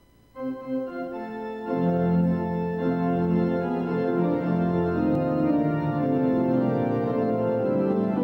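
Organ music playing held chords, starting a moment in, with deep bass notes joining about two seconds in.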